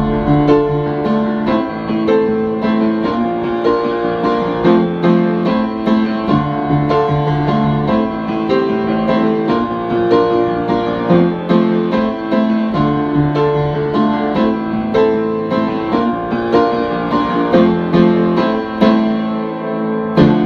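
Background music led by piano, with notes struck at an even pace.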